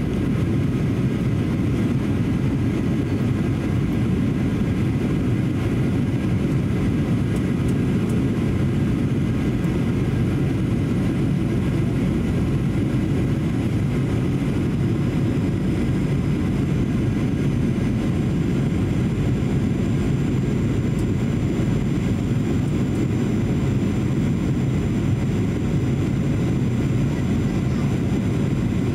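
Steady in-flight cabin noise of a Boeing 737-800: an even low rumble of airflow and its CFM56-7B turbofan engines, with faint steady whining tones above it.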